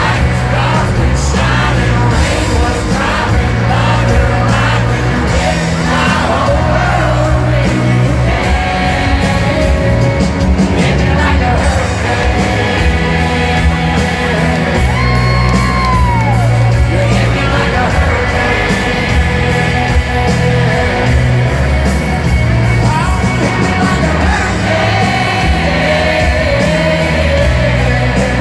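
Live country song played by a full band with a male lead vocal, and a crowd yelling and whooping along in a large hall.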